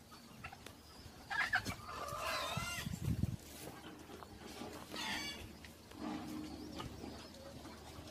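Short animal calls: a run of them from about one and a half to three seconds in, and another about five seconds in.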